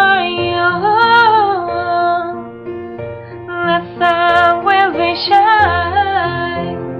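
A woman singing a slow, tender ballad over piano, in two sung phrases with vibrato separated by a short pause.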